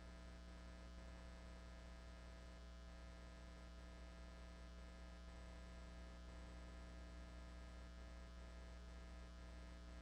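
Near silence: a steady low electrical hum with overtones on the broadcast audio line, unchanging throughout.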